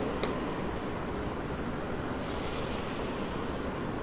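Steady rushing noise with a low rumble, an ambient sound-effect bed; a single short click about a quarter second in.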